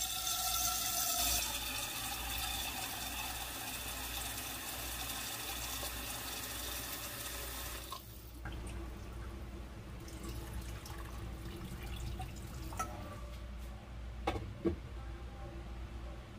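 Tap water running into a metal cooking pot at a kitchen sink, shut off about halfway through. After that, quieter handling with a few sharp knocks near the end.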